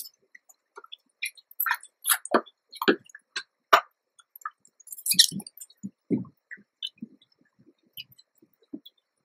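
Shredded newspaper nest bedding crackling and rustling as a mother rodent shifts about on top of her newborn pups, in irregular bursts of sharp clicks and crinkles.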